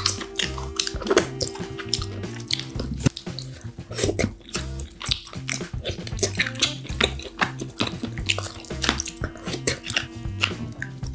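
Wet, clicky eating sounds as steamed king crab meat is picked from the shell with metal chopsticks and chewed: many short sharp clicks and drips. Background music with a repeating bass line runs underneath.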